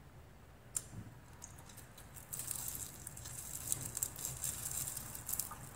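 Fingers picking apart a grilled milkfish, pulling at the charred skin and flesh. A couple of clicks about a second in, then a dense run of fine crackling and squishing from about two seconds in until near the end.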